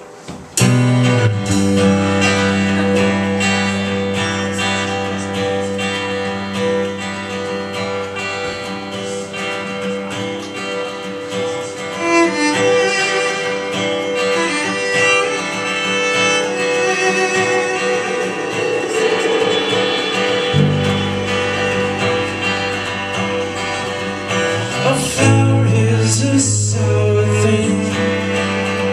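Live band starting a song: strummed acoustic guitar, electric bass and cello, all coming in together about half a second in after a brief hush.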